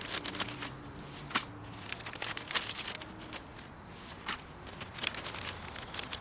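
Gloved hands scooping and crumbling potting soil into a plastic plant pot: irregular gritty rustles with small crunches and taps.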